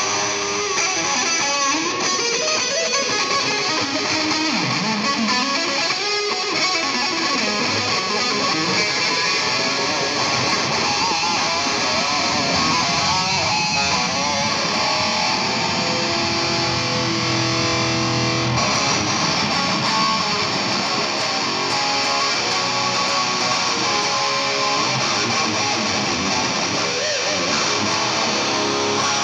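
Electric guitar music, loud and continuous.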